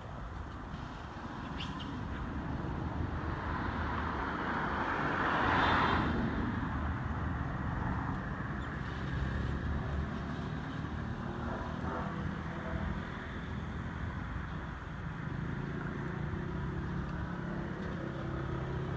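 Steady low outdoor traffic rumble, with a vehicle passing that swells and fades, loudest about six seconds in.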